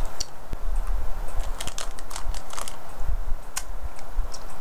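Crunching and chewing a hard pressed-sugar candy, like a SweeTart: a run of irregular crisp cracks and clicks.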